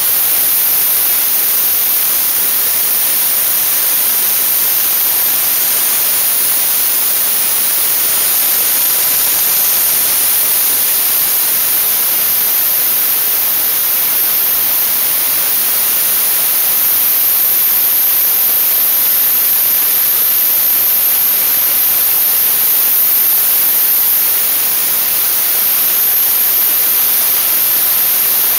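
Dry-ice blasting gun running continuously: a steady, loud hiss of compressed air and dry-ice pellets jetting from the nozzle onto engine-bay parts.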